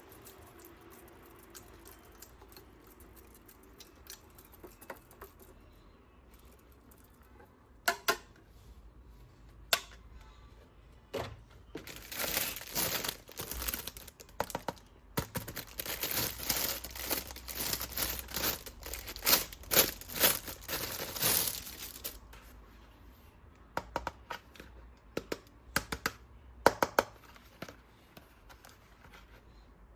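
Toy packaging being handled and opened: scattered sharp clicks and taps, then about ten seconds of dense crinkling and tearing, then a few more clicks near the end.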